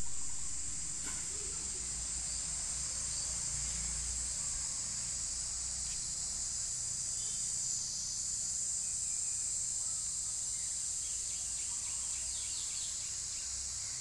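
Steady, high-pitched drone of insects calling without a break, with a low rumble underneath.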